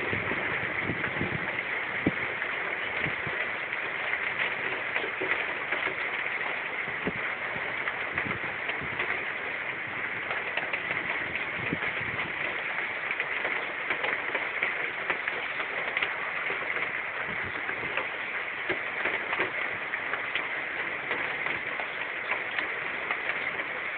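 Heavy rain falling steadily: a dense hiss with many scattered drops tapping on surfaces.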